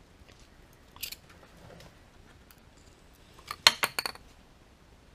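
Small flathead screwdriver prying out a C5 Corvette differential output shaft seal: a single click about a second in, then a quick run of sharp metallic clicks and clinks a little past halfway as the seal pops out of its bore.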